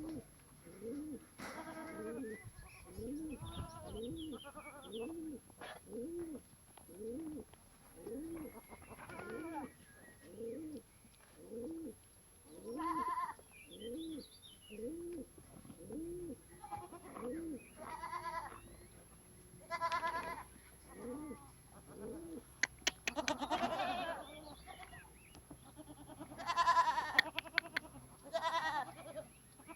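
Goats bleating now and then over a steady run of short, low cooing calls, about one a second through the first half. Louder, harsher bleats come near the end.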